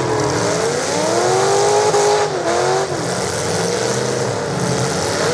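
Several demolition derby cars' engines revving hard, their pitch rising and falling again and again as they push against each other, over a dense wash of engine and tyre noise.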